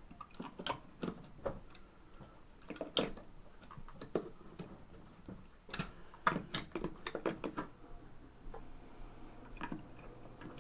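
Irregular plastic clicks and knocks as D batteries are handled and fitted into the display's plastic battery box.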